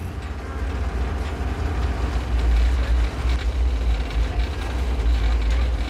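Passenger train running along the track: a steady low rumble with a rattling hiss over it.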